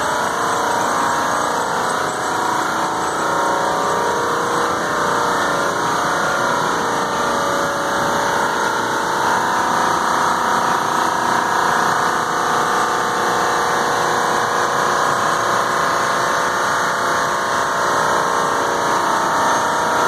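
Large 100-ton commercial air-conditioning plant (air handler and compressors) running: a loud, steady mechanical drone with several held tones.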